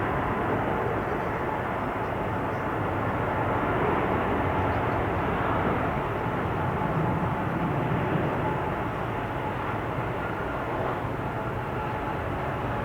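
Jet airliner engines running, a steady rushing noise with a faint, steady whine.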